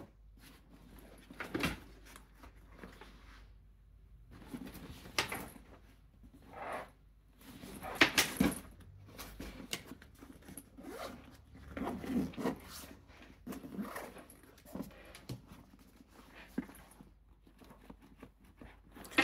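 K&F Concept 25L camera backpack being handled: zippers pulled and its nylon fabric rustling and rubbing in a series of short, irregular bursts.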